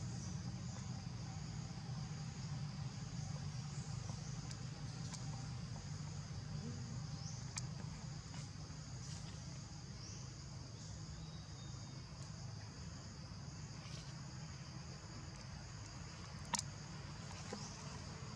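Steady high chirring of insects, crickets or cicadas, over a low steady hum of background noise, with a couple of sharp clicks, the loudest near the end.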